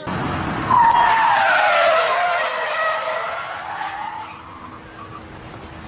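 Car tyres screeching in a long skid. The screech starts about a second in, is loudest for the next couple of seconds, then slowly falls in pitch and fades away.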